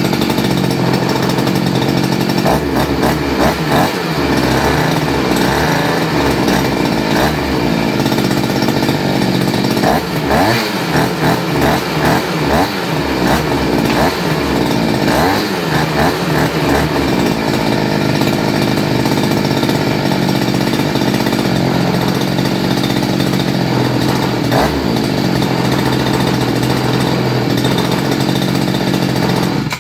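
Freshly rebuilt 43 cc two-stroke single-cylinder engine running on a test stand, its speed wavering up and down a few times, with the steadiest running in the second half. The owner says that after decarbonising and cleaning the carburettor and exhaust it runs without fault. The sound cuts off abruptly at the very end.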